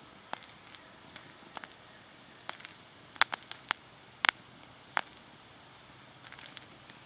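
Hard red winter wheat kernels popping in a hot oiled pan as they parch: scattered sharp pops over a faint hiss, the loudest a little after three and four seconds in. The popping is a sign the wheat is getting close to done.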